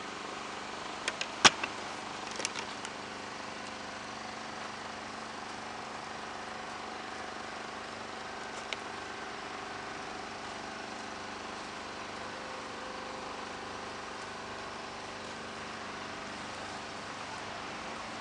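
Steady background hum with faint steady tones, like a distant engine or traffic. A quick cluster of sharp clicks comes about a second in, and a single click near the middle.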